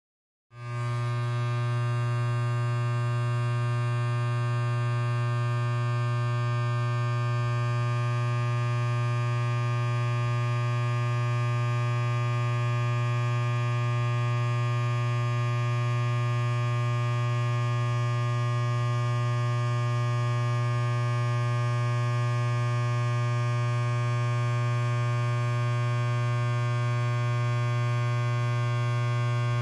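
Electric hair clipper running, a steady low buzz with many overtones that starts about half a second in and holds unchanged.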